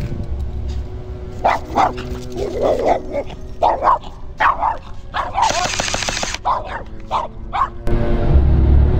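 A small dog barking over and over in short, sharp yaps, with a harsh hissing burst about a second long in the middle. Background music plays throughout and grows louder near the end.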